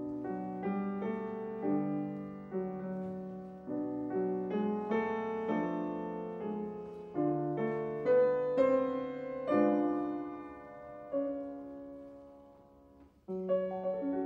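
Slow, gentle piano music, single notes and chords struck and left to fade. The sound dies away almost to nothing about thirteen seconds in before a new phrase begins.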